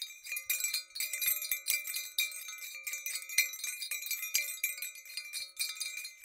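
Tinkling wind chimes: a dense, irregular shimmer of small bell-like strikes over a few held ringing tones, stopping abruptly at the end.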